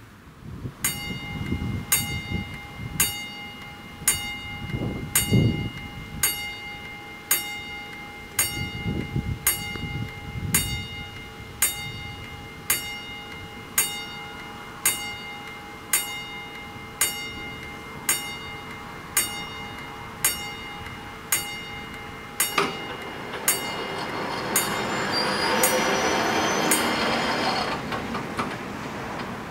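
Mechanical level-crossing bell striking about once a second, warning that a train is approaching, until it stops near the end. From about two-thirds of the way in, the barrier drives run with a rising mechanical whirr as the booms lower, stopping shortly before the end.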